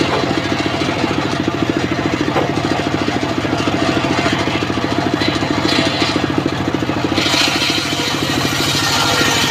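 Engine of a homemade circular saw bench running steadily, spinning the blade. About seven seconds in, a harsh hiss joins the engine note as the blade starts ripping a board.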